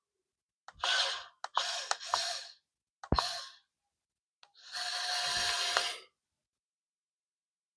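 A person breathing close to the microphone: four hissy breaths, the last and longest about five seconds in.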